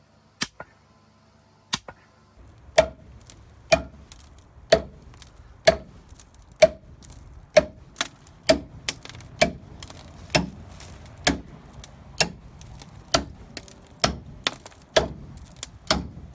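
Sledgehammer striking steel bull pins driven into drilled holes in a boulder: sharp metallic clinks with a short ring. Two scattered blows come first, then steady blows about once a second from about three seconds in. The pins are working as wedges to crack the rock apart.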